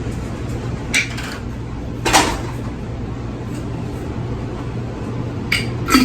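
Kitchen cookware clatter: a few short knocks and clinks of pots and utensils, the loudest about two seconds in, over a steady low hum.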